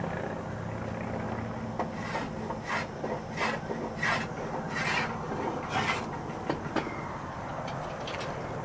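About six rhythmic scraping strokes of a hand tool on a wooden boat plank, roughly one every two-thirds of a second, as the plank is shaped, over a low steady hum.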